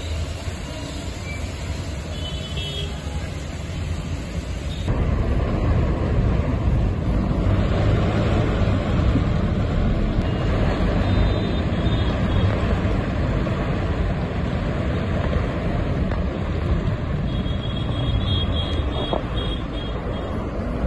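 Road traffic on a wet road: a steady rumble of vehicle engines with the hiss of tyres on water, which gets abruptly louder about five seconds in.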